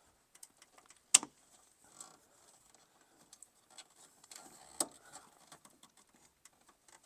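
Turn signal switch's plastic wiring connector and wires being handled and worked loose from the steering column: scattered small clicks and rustling, with a sharp click about a second in and another a little before five seconds.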